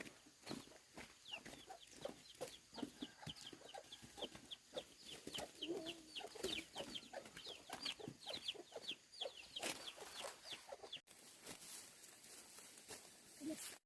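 Birds calling: many short, high calls, each sliding downward, a few per second, mixed with lower short calls. They stop abruptly about eleven seconds in, leaving faint background.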